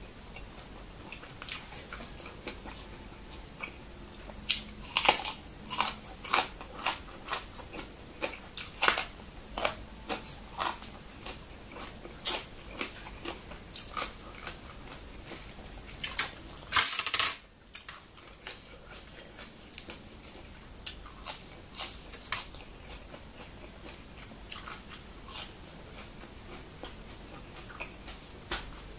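A man chewing a mouthful of spicy minced buffalo larb up close: irregular wet mouth clicks and crunching, with a short loud hiss about two-thirds of the way through.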